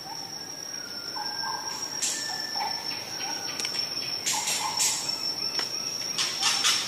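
Natural bush ambience: insects trill steadily on one high note, with short bird calls and a few brief scratchy bursts scattered through it.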